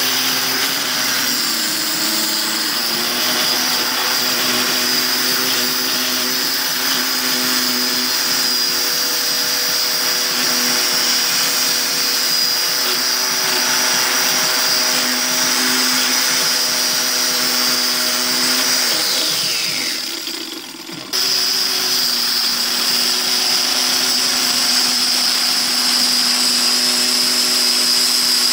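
Handheld electric circular saw running at full speed and cutting through an MDF sheet, a steady high whine. About two-thirds of the way in, the motor winds down, falling in pitch. Then the saw is suddenly back at full speed, cutting again.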